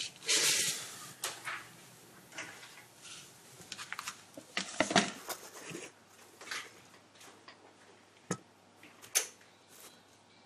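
Quiet handling sounds as a vinyl record is put onto a turntable: a rustle at the start, then scattered light clicks and knocks, with two sharper clicks near the end as the disc settles on the spindle and platter.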